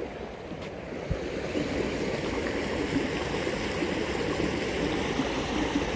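Flood-swollen creek running over its banks: a steady rush of water that grows a little louder about a second or two in.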